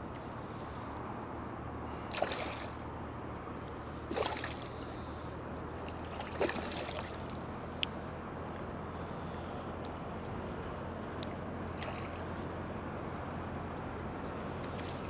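Small splashes in water, four of them a few seconds apart, each with a short bubbling gulp, over a steady low background rumble, with a single sharp click about eight seconds in.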